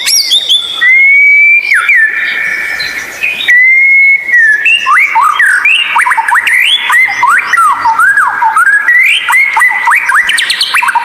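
White-rumped shama singing loud clear whistles: two long held notes in the first few seconds, then a quick run of rising and falling whistled phrases.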